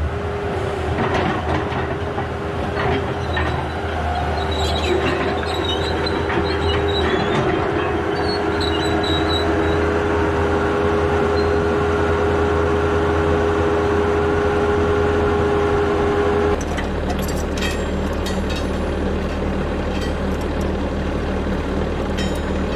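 A heavy digging machine's diesel engine running, with a steady hydraulic whine as its boom swings in over a truck's engine bay. The whine cuts off sharply about 16 seconds in. The engine keeps running after that, with scattered metallic clinks and clanks of the lifting gear being handled.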